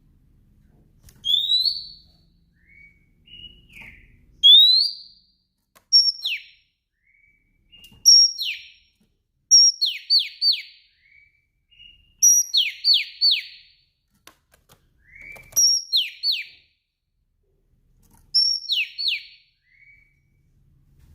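Female Oriental magpie-robin (kacer) calling: two rising whistles, then repeated runs of two or three sharp falling whistled notes every couple of seconds, with short softer notes in between. This is the call keepers use to stir male magpie-robins into song.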